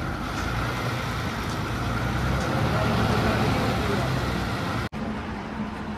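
Road-vehicle engine rumble and road noise, swelling to its loudest midway and easing off, with faint voices underneath.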